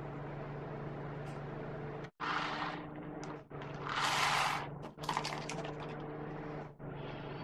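Small herbal pills tipped from a torn paper sachet into the mouth: two brief rustling, pouring bursts, the second louder, about two and four seconds in. Under them runs a steady low hum.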